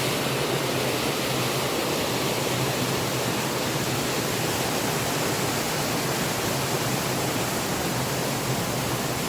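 A steady, dense rush of water that does not change in level.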